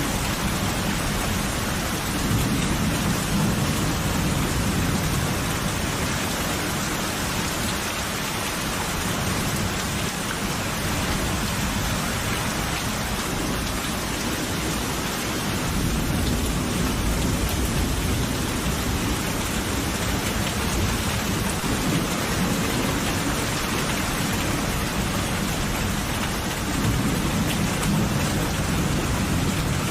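Steady rain falling, with low rolling thunder rumbling underneath and swelling three times: a few seconds in, about halfway through, and near the end.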